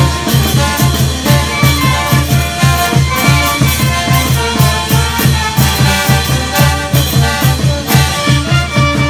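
Andean brass band playing live: trumpets, saxophones and trombones carrying sustained melody notes over a sousaphone bass line, bass drum with cymbal and snare keeping a steady beat.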